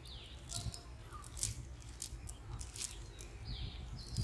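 Nylon cast net rustling in many short, crisp crackles as its mesh and lines are gathered and arranged in the hands. Birds chirp briefly in the background.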